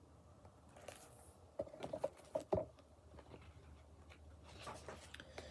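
Handling noise as a hardcover book is lowered: a soft rustle, then a few light knocks and clicks, the loudest about two and a half seconds in, and some fainter clicks near the end.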